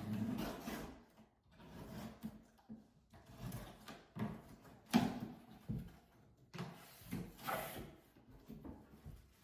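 Irregular handling noises: things being moved and rustled on a surface, with a sharp knock about five seconds in.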